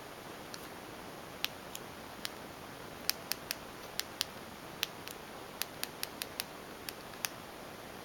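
Buttons of a small handheld infrared remote clicking as they are pressed, a string of short, sharp clicks at uneven intervals, thickest from about three to seven seconds in, over a faint steady hiss.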